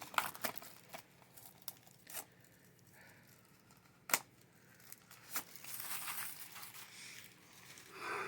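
Plastic shrink-wrap being torn and crinkled off a DVD case, with scattered sharp clicks and one louder snap about four seconds in.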